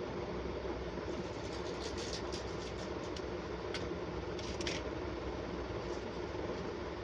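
A steady hum, with a scatter of faint clicks and taps from about one to five seconds in: a boiled potato being cut on an upright boti blade over a steel plate.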